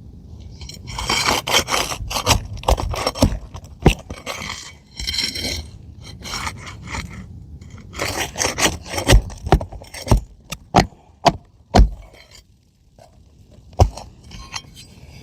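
Scraping and sharp knocks of a tool worked under roof shingles, loosening their nails for a shingle repair. It comes in uneven bursts of rough scraping with single sharp clicks between them.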